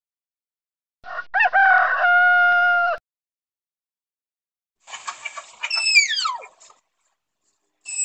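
A rooster crowing once: a few rising notes run into one long held note. About five seconds in, a second, high call slides steeply down in pitch.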